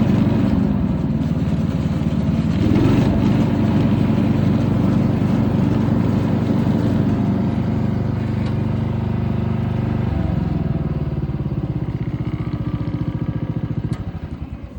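Simplicity 3110 riding mower's 10-horsepower Briggs & Stratton engine running steadily, with a brief rise in speed about three seconds in and a lower, steadier note from about ten seconds. Near the end it is shut off and dies away in slowing pulses.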